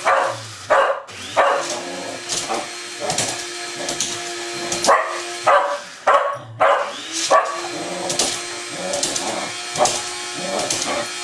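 Electric coffee grinder running steadily, stopping briefly about a second in and again past the middle, while a dog barks at it about once a second.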